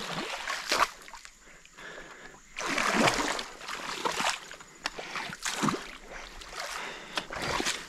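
Water splashing and sloshing in a few irregular bursts, with quieter gaps between them.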